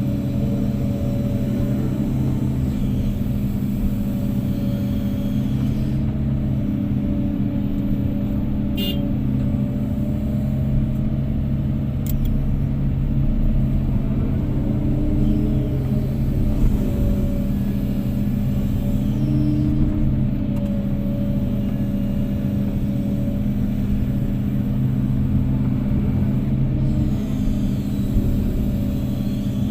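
Heavy diesel engine running steadily, its pitch rising and falling a little.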